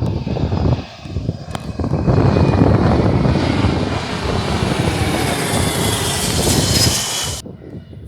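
Jet airliner flying past, its engine noise swelling into a loud rumble and hiss about two seconds in. It cuts off suddenly near the end.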